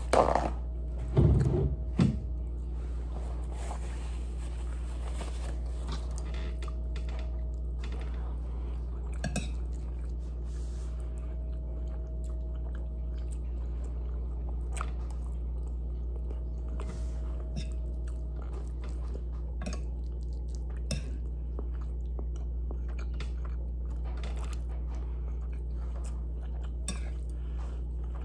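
Close-up chewing and mouth smacking while eating chicken and rice in gravy, with scattered small clicks from a fork on a plate. In the first two seconds a paper towel is torn from a roll, louder than the rest. A steady low hum runs underneath.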